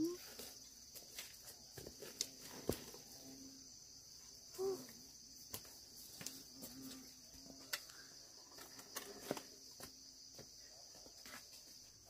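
Steady high-pitched chorus of insects such as crickets, with scattered small clicks and knocks and two brief soft calls, one at the very start and one about halfway.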